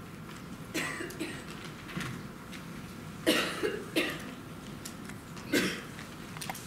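Several coughs from people in the audience, about five short coughs spread through the pause, over a steady room hum.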